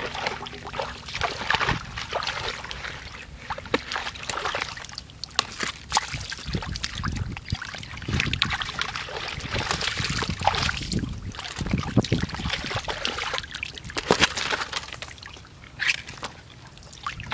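Shallow muddy water sloshing and splashing in irregular bursts as a person wades barefoot and grabs at eels by hand. It goes quieter for a moment near the end.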